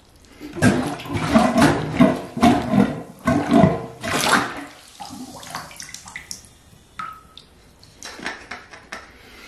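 Handheld rubber cup plunger (Korky Beehive Mini) plunging a clogged, slow-draining bathtub drain under standing water: a run of wet plunging strokes, about two a second, for the first four seconds or so, then quieter water sounds as the plunger is lifted out.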